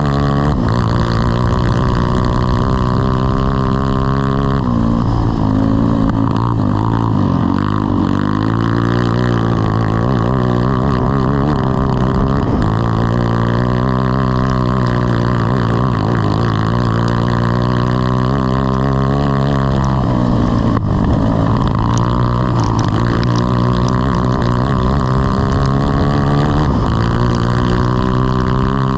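Grass kart engine running at racing speed, its revs rising and falling continually as it works around the track, with a second engine's note crossing it at times.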